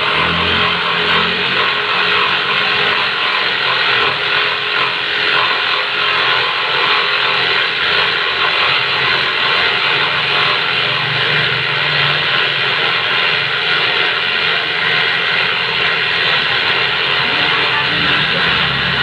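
Electric jigsaw running steadily while its blade cuts through a wooden board, a constant motor whine mixed with the rattle of the blade.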